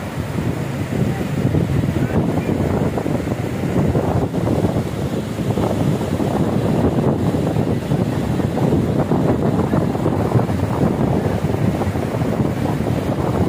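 Wind buffeting the microphone over the steady wash of small waves breaking in the shallows.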